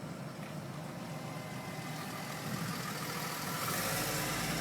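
Car engine and road noise heard from inside the cabin: a steady low hum that grows louder about three and a half seconds in, as the car picks up speed.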